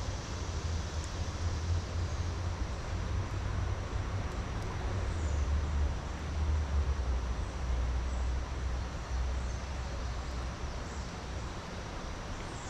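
Steady rush of a swollen creek's flowing water, with a low, uneven rumble of wind on the microphone.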